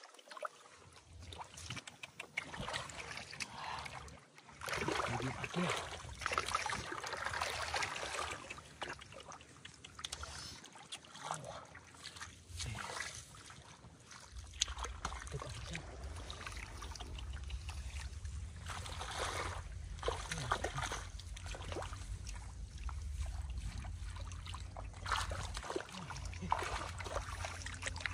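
Water splashing and sloshing in irregular bursts, with small clicks and trickles. A steady low rumble comes in about halfway through.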